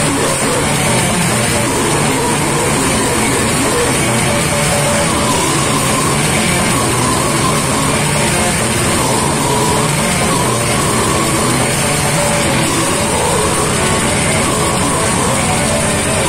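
Death metal band playing live at full volume: distorted electric guitars, bass and drums in a dense, continuous wall of sound.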